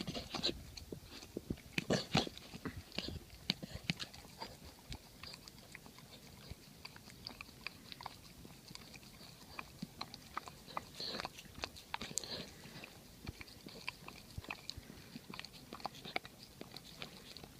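Golden retriever chewing peanut butter: a run of quick mouth clicks, loudest about two seconds in and again a little past the middle.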